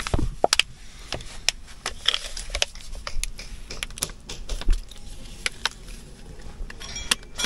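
Irregular clicks and crinkles of a plastic drinks bottle being handled and drunk from, in a gloved hand.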